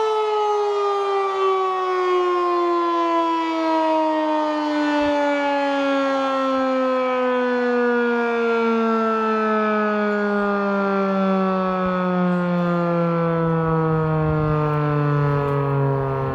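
Federal Signal 2001-DC outdoor warning siren winding down, its rich multi-tone pitch falling slowly and steadily at an even, loud level.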